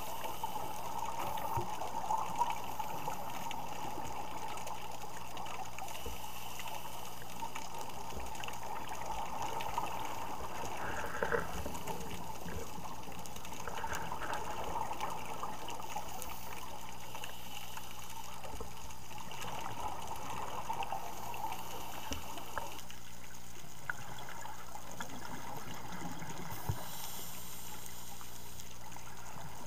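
Scuba divers' exhaled bubbles gurgling out of their regulators, recorded underwater, swelling with each breath about every five or six seconds over a steady water hiss, with a few small clicks.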